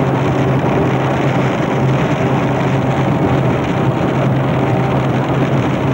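Steady road and engine noise heard from inside a moving car on a wet highway: an even rush of tyre and wind noise over a constant low drone.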